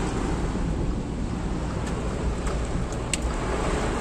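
Heavy wind-driven rain beating on a moving car, heard from inside the cabin: a steady rushing noise with a few sharp ticks about two to three seconds in.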